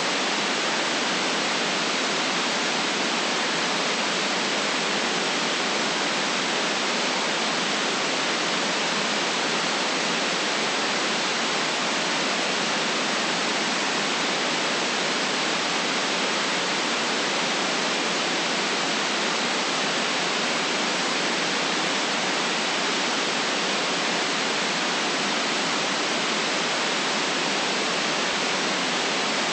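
Steady white noise: an even, unchanging hiss with the deepest bass and the highest treble cut off sharply.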